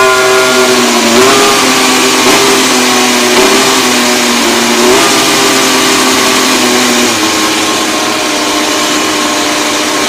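Mercedes W14 Formula 1 car's turbocharged V6 hybrid power unit running on its first fire-up, held at a steady high idle with four short throttle blips that briefly raise the pitch in the first five seconds, then running steadier.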